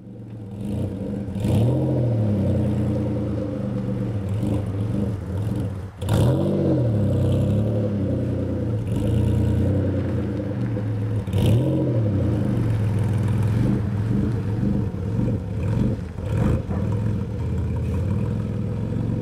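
Toyota V6 engine swapped into a mid-engine Toyota MR2, idling and blipped repeatedly: about six short revs, each rising and falling back to a steady idle. It is heard through the car's aftermarket exhaust.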